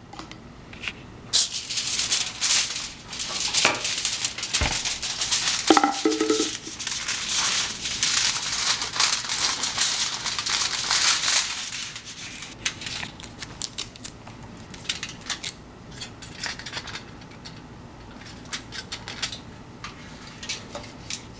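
Thin aluminum foil crinkling and crackling as it is handled and cut into a strip with scissors: dense crackling for about the first ten seconds, then scattered crinkles.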